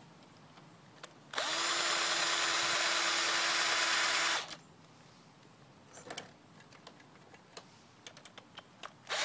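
Craftsman power drill spinning a socket to tighten a fastener at the scooter's rear wheel. It runs at one steady speed with a steady whine for about three seconds, stops, and starts again briefly at the very end.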